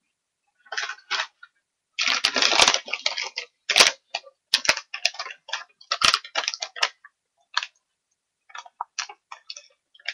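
Small poodle-type dog rummaging on a corduroy couch cushion, nosing and pawing at the fabric: irregular rustling and crackling, densest about two seconds in.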